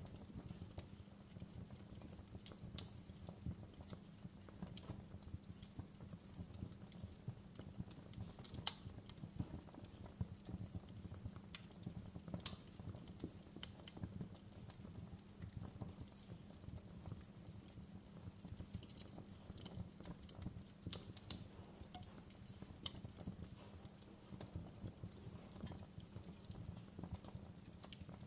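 Outdoor fire crackling: a dense run of small snaps and ticks over a steady low rumble, with a few louder sharp pops, three of them standing out.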